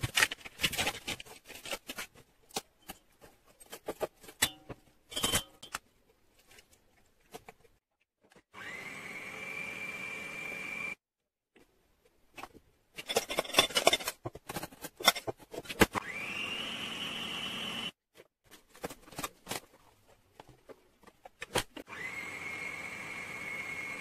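Electric stand mixer with a balloon whisk beating buttercream in a steel bowl, run in three short spells, each starting with a rising motor whine and then running steadily for two to three seconds. In between, clinks and knocks of the steel bowl and whisk being handled.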